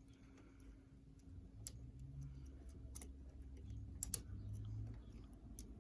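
Faint, scattered metallic clicks and ticks of a wire pick and tension tool working the levers inside a 3-lever mortise lock, a few clicks louder than the rest.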